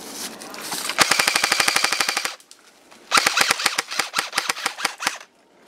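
Airsoft rifle firing on full auto: a rapid, even burst of about a second and a half, then after a short pause a second, longer burst of about two seconds.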